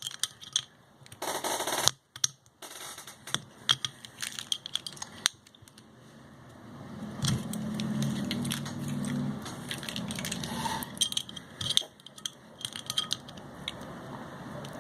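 Scattered clicks, clinks and handling noises as a bottle of Mexican soda is worked open, with a low drone for a couple of seconds near the middle.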